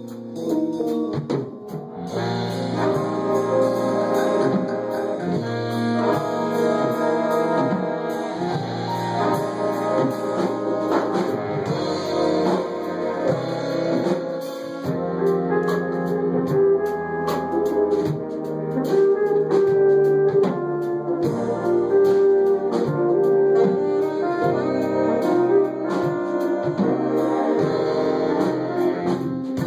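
Big jazz band playing: brass and saxophones over piano, electric bass and drums. The playing is thinner at first, and the full band comes in about two seconds in.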